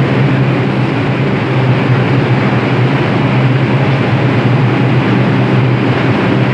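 Steady loud hum and rumble of a subway train standing at the platform, several constant low tones over an even noise.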